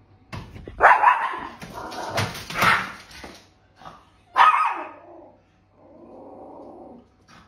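A small dog barking in three loud outbursts, followed by a softer, rougher sound near the end.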